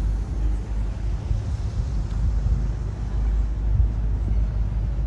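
Outdoor city ambience: a steady low rumble with no distinct events standing out.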